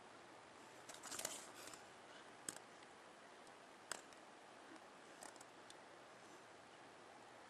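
Faint handling of a paper instruction booklet as its pages are turned: a crisp rustle about a second in, then a few short, sharp paper snaps and small ticks.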